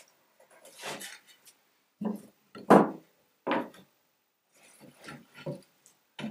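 Mitered wooden frame strips being handled on a plywood workbench: a string of irregular knocks and scrapes as the pieces are lifted, set down and slid together, the loudest knock a little under halfway through.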